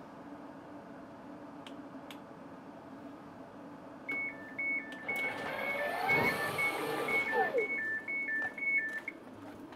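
West Midlands Railway Class 730 train's sliding passenger door opening: a rapid warning beep alternating between two pitches starts about four seconds in and runs for about five seconds. In the middle of it the door mechanism whirs as the door slides open, with a rush of noise.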